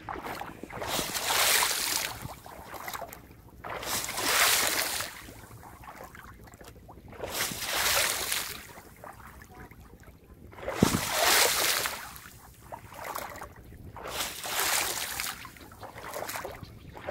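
Shallow water being kicked and splashed by foot, in repeated loud surges about every three seconds with gentler sloshing between: the kick-splashing method of driving climbing perch out of a flooded rice field.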